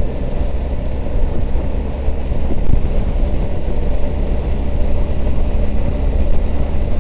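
BMW R1250 GS Adventure motorcycle running: its boxer-twin engine gives a loud, steady low rumble that holds even throughout.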